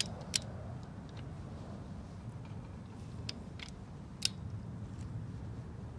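Click-type torque wrench working a wheel lug nut: a few sharp metallic clicks, the loudest about a third of a second in and again just past four seconds, over a low steady background rumble.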